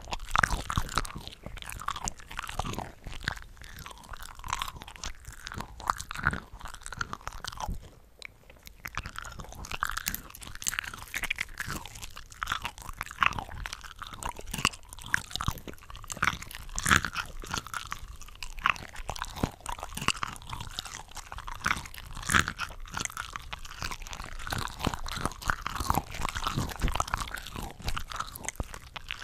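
Close-miked chewing and biting of cooked cocktail shrimp, with several eating recordings layered over one another into a dense run of crunchy, wet bites. There is a short lull about eight seconds in.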